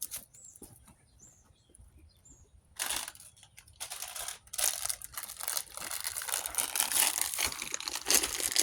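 Plastic packaging crinkling and rustling as the new carburetor intake boots are handled and unwrapped, starting about three seconds in and running on in a dense, busy stretch.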